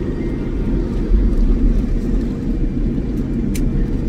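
Airliner cabin noise inside a Boeing 787: a steady low rumble of the engines and airflow heard from a passenger seat.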